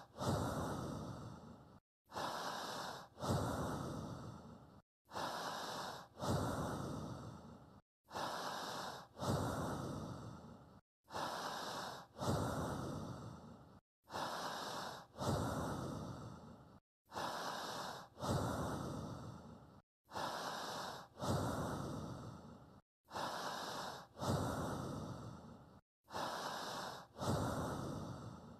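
A person breathing in a slow, even rhythm, one breath about every three seconds, each breath in two parts with the second louder and fading away. A brief moment of dead silence between breaths shows that the recording is looped.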